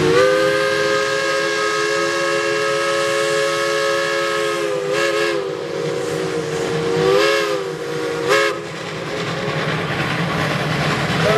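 Steam locomotive chime whistles sounding several notes together: one long blast of about four and a half seconds, then three short blasts. Steady steam hiss from the locomotives runs underneath.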